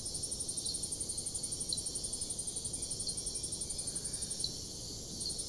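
High-pitched rapid pulsing, about ten pulses a second, over a steady faint hiss, with a few faint ticks now and then.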